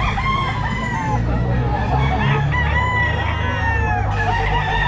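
Several gamecocks crowing over one another, with one long crow from about two seconds in until about four seconds, over a low steady rumble.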